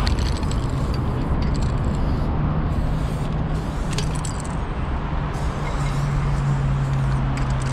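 Steady low rumble of city traffic and vehicles. A low engine-like hum comes in twice, and a few faint light clicks sound over it.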